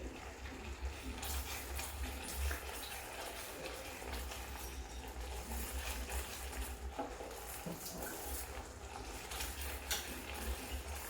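A spoon stirring and scraping a thick ginger and jaggery mixture in a pan as it cooks down, with a soft sizzle and scattered clicks of the spoon against the pan. The syrup has not yet reached the set stage.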